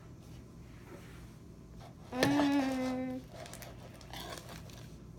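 A voice holds one steady note for about a second, a little past two seconds in; otherwise only faint low noise.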